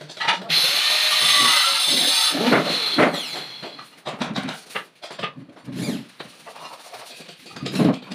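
Cordless drill driving a screw into the melamine cabinet panels: a steady high whir for about two seconds, starting about half a second in. It is followed by scattered knocks and the handling of the boards.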